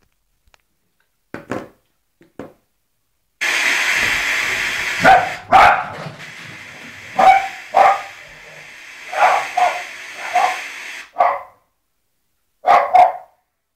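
A dog barking about a dozen times, in short singles and pairs. A loud steady hiss comes in about three seconds in and stops about eleven seconds in, under the barks.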